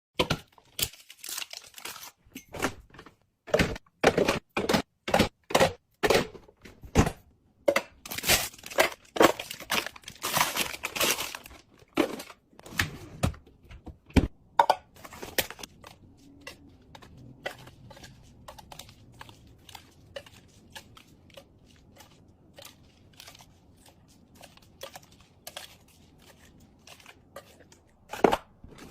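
Packaging crinkling and tearing, with many sharp clicks and knocks as plastic containers and food items are handled and set down while a fridge is restocked. The handling is busy and loud for the first half, then thins to lighter, scattered clicks.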